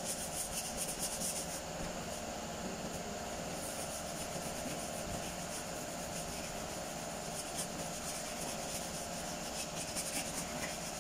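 Hand sanding and rubbing on a car's painted fender panel: a quick run of scraping strokes in the first second or so and again near the end, over a steady background hum.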